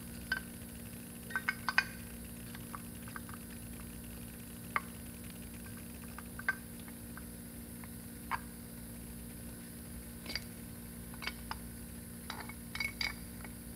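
Scattered light clicks and taps as a rear disc brake caliper is handled and turned over, loudest in a short cluster in the first two seconds and again near the end, over a steady low electrical hum.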